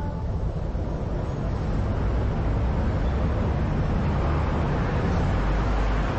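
Steady low rumble and hiss of outdoor background noise, with no voices.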